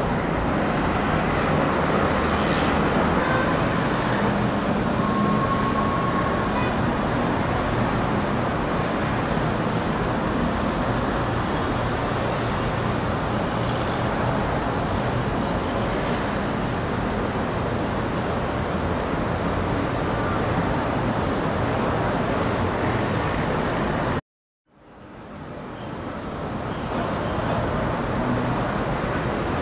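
Steady outdoor traffic noise: a continuous even rumble of city vehicles. About four-fifths of the way in it cuts out to silence for a moment and then fades back in.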